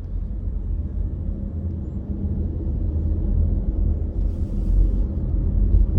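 Low, steady rumble of a car heard from inside the cabin, engine and road noise, growing slightly louder over the few seconds.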